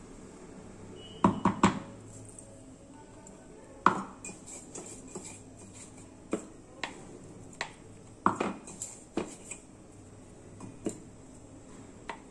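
Irregular clinks and knocks of steel kitchenware: a steel container tapping against a stainless steel mixing bowl while bread crumbs are tipped in, with a quick cluster of three knocks about a second in.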